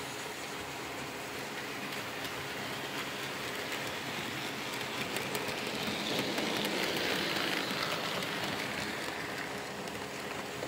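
OO scale electric model train (red steam-outline locomotive and coaches) running past on a curve: a steady whirring rumble of motor and wheels on the track that grows louder as it approaches, peaks about six to eight seconds in as the train passes, and then eases off.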